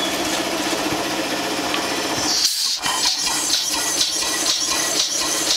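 A vertical single-cylinder stationary steam engine running on compressed air. A rapid mechanical chatter comes first; about halfway through there is a short hiss of air, and then the engine's regular exhaust puffs or knocks come about four times a second.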